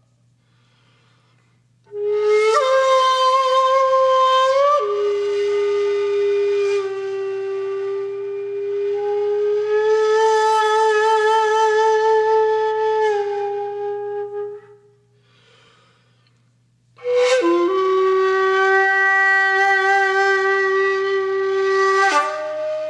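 Background music: a solo flute-like woodwind playing slow, long held notes with slight vibrato, in two phrases with a short pause between them.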